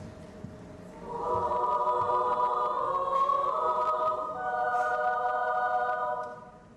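Children's choir singing sustained chords in several parts; the chord enters about a second in, shifts pitch partway through and falls away near the end.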